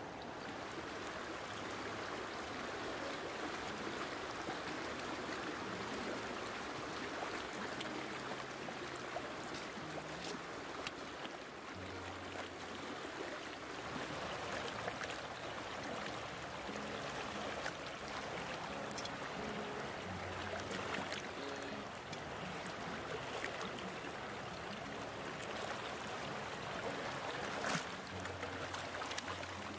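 Stream water running steadily, with scattered splashes and small clicks as potatoes are rinsed in a plastic tub and put into a metal pot, one sharper clack near the end. Soft low background music notes sound underneath.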